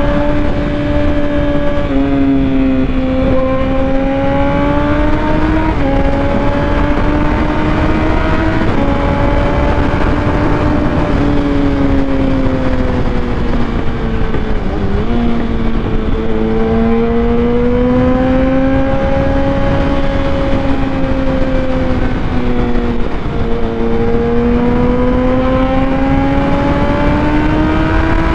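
Motorcycle engine running under way through traffic, its pitch slowly rising and falling with the throttle and dipping sharply a few times, over steady wind and road noise.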